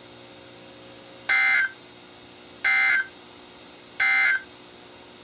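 Emergency Alert System end-of-message data bursts broadcast over NOAA Weather Radio: three short, loud, identical buzzy digital chirps about a second and a third apart. They mark the close of the flood warning just read.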